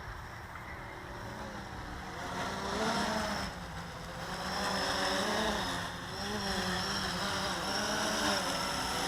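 Blade 350 QX quadcopter's motors and propellers buzzing in flight, the pitch rising and falling as the throttle changes.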